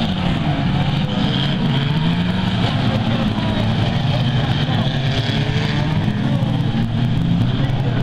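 Engines of several 1600cc banger racing cars running and revving on the track, their pitch rising and falling as they rev up and ease off.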